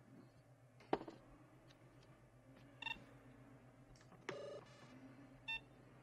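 Esper photo-analysis machine being switched on: a sharp click about a second in, then short electronic beeps and a brief buzzing chirp as the grid screen comes up.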